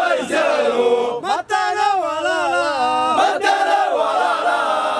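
A group of men's voices chanting together in long, drawn-out notes that waver up and down in pitch.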